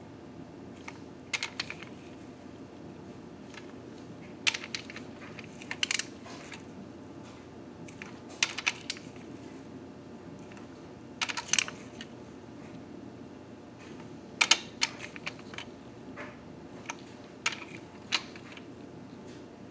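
Short clusters of sharp metallic clicks and clinks, a few seconds apart, from a wrench and socket working the camshaft tower cap bolts on a Nissan KA24DE engine during step torquing, over a steady low hum.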